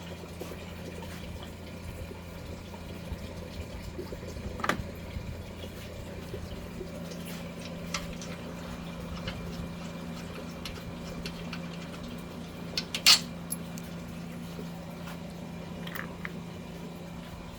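Antifreeze draining from a truck radiator into a bucket, a steady liquid fill over a low hum. A few light knocks or clicks, the sharpest about thirteen seconds in.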